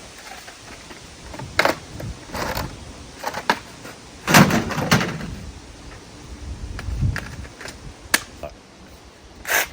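Irregular knocks, clicks and rustles of tools and wrapping being handled, with no power saw running.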